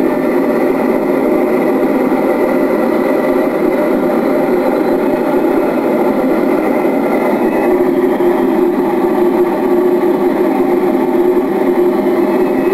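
Steady drone of an aircraft in flight, a constant engine-like hum made of several tones that hold their pitch with no rise or fall.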